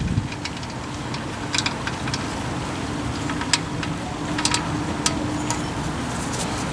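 Steady low rumble of background traffic or machinery, with scattered light metallic clicks and taps as the oil drain plug and its washer are threaded by hand into the oil pan.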